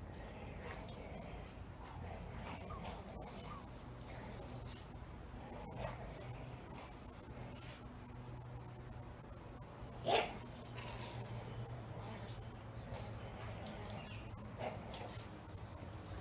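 Insects keeping up a steady high-pitched drone. About ten seconds in, a brief sharp sound stands out as the loudest moment, and there are a few fainter short sounds besides.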